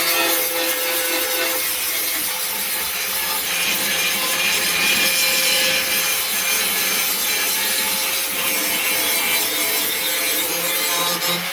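Steady abrasive scraping as surface rust is scoured off a steel lawnmower deck, over a faint, even tool whine.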